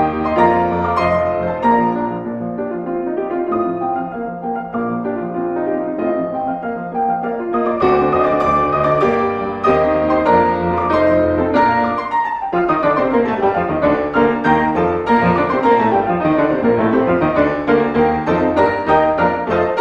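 Solo piano playing classical music, with many notes moving quickly.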